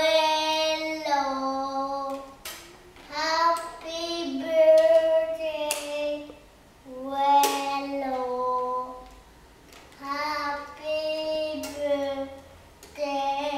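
Young boy singing a song in phrases of long held notes, with short pauses between them. A few sharp clicks fall between and under the phrases.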